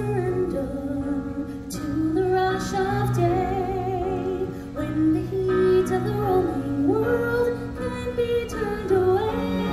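Music from a live stage show: a woman singing a melody of held, gliding notes over backing music.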